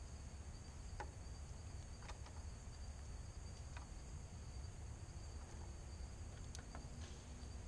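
Steady high-pitched chorus of evening insects, with a low steady rumble underneath. A few short, sharp clicks come at irregular moments as a male northern cardinal cracks seeds at the feeder.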